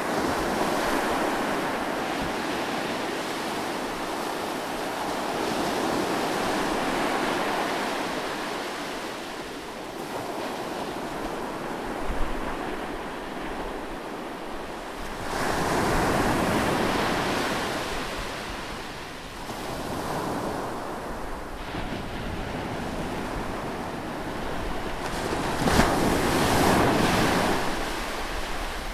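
Sea waves breaking close on the shore, the surf rushing in and washing back in slow swells. The biggest breaks come about halfway through and again near the end.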